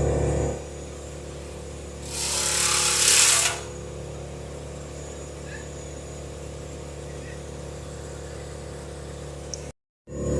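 A large engine idling steadily with a low drone. A loud burst of hiss comes about two seconds in and lasts a second and a half.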